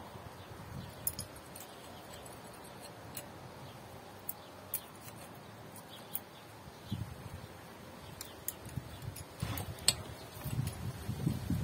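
Hand tools and small metal parts clicking and tapping at irregular intervals while fittings are undone on top of a diesel engine, with a few dull bumps and rustling near the end.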